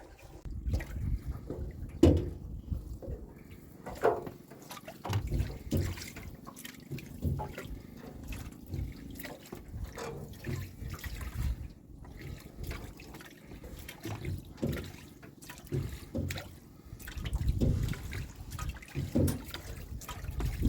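Water splashing and trickling in irregular spurts, with low knocks, as shallow water is worked by hand while catching shrimp.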